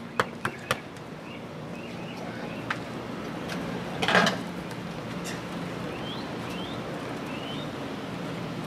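Outdoor ambience: a steady low hum with short, rising bird chirps here and there, a few light clicks in the first second, and a brief clatter about four seconds in.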